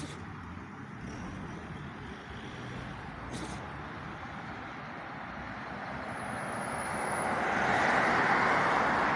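Street traffic: a steady hiss of cars on the road, with one vehicle growing louder over the last few seconds as it passes close.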